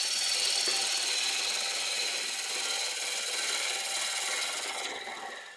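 Turning tool cutting into a spinning sycamore blank on a wood lathe: a steady hissing scrape of steel on wood that fades and stops near the end.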